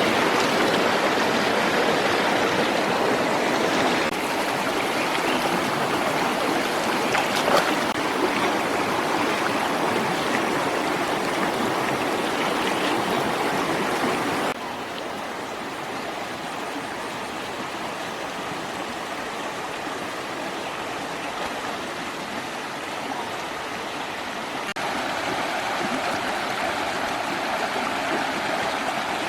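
Steady rushing of running water, like a stream. It drops abruptly to a quieter level about halfway through and rises again near the end.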